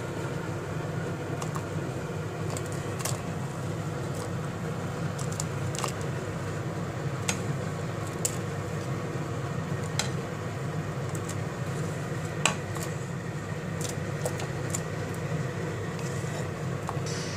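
A spatula tapping and scraping on a ceramic plate, a scatter of light clicks, as fresh tagliatelle is pushed into a pot of boiling water, over a steady low rumble.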